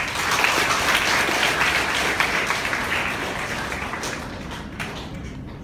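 Audience applauding, starting all at once and strongest over the first few seconds, then fading away toward the end.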